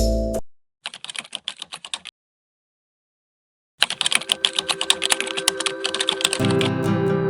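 Typing on a computer keyboard: quick, irregular key clicks in two runs with a silent gap of about two seconds between them. Guitar music comes in under the second run of clicks near the end.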